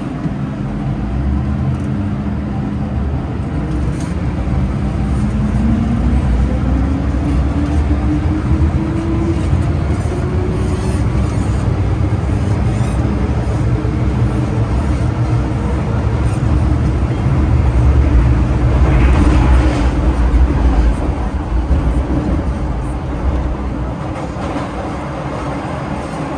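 MTR Kwun Tong Line M-Train running, with a heavy low rumble throughout. Over the first ten seconds or so a motor whine climbs steadily in pitch as the train accelerates. The rumble grows louder for a few seconds about two thirds of the way in.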